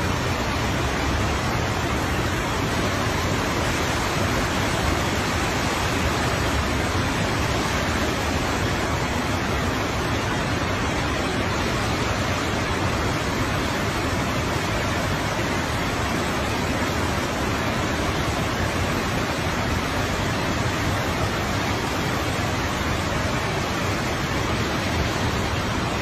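A large waterfall and its white-water river below: a steady, even rush of falling and churning water.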